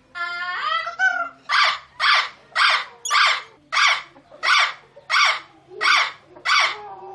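Indian ringneck parrot calling: a drawn-out call in the first second, then a run of nine short, screechy squawks at a steady pace of about one and a half a second.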